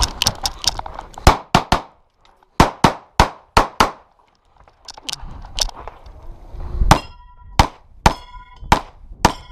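Handgun shots fired in quick strings, a few shots a third of a second apart with short pauses between strings; toward the end steel targets ring after the hits.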